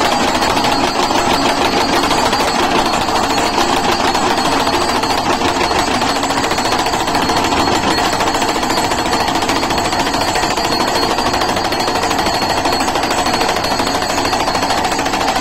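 The post-driving hammer of a crash-barrier installation machine pounds a steel guardrail post into hard, stony ground in a rapid, steady, unbroken hammering.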